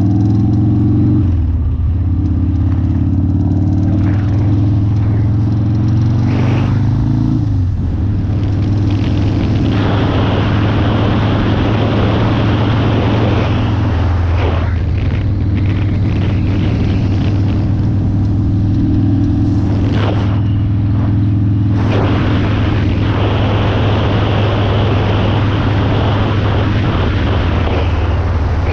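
1999 Harley-Davidson Sportster's air-cooled V-twin running under way, its pitch rising for the first several seconds and then dropping suddenly. Heavy wind noise on the microphone comes and goes through the rest. The owner reports a metal-on-metal noise that appears only at some speeds, cause unknown to him, with the primary chain tensioned.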